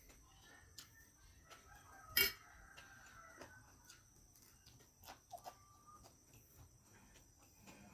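Quiet eating sounds with scattered small clicks and one sharp clink of a utensil on a plate about two seconds in. A chicken clucks faintly in the background.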